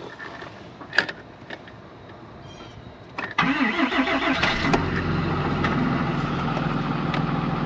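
Diesel pickup truck engine started cold, with fresh batteries, in sub-freezing weather. After a couple of clicks, it fires right up about three seconds in, revs briefly and settles into a steady idle.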